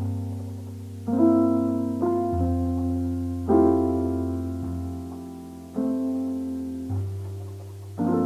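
Background piano music: slow chords struck about every one to two seconds, each ringing and fading, over held low bass notes.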